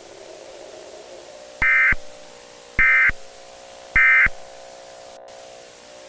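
EAS end-of-message (EOM) signal: three short bursts of SAME digital data tones, about a second and a bit apart, over a steady low hum. A brief click comes just before the audio cuts off.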